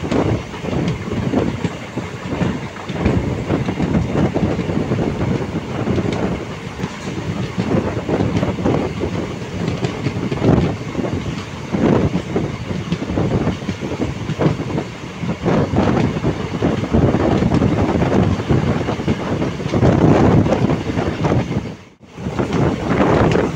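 Express train running at speed, heard from a passenger coach: a steady rushing noise with the wheels clattering over the rail joints. The sound cuts out briefly near the end.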